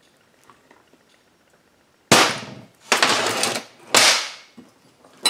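Impact wrench, the tool for taking a chainsaw clutch off, fired in three short bursts starting about two seconds in, each about half a second long and a second or so apart.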